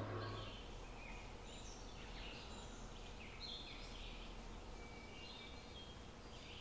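Faint birds chirping, short scattered calls over a low steady background hiss.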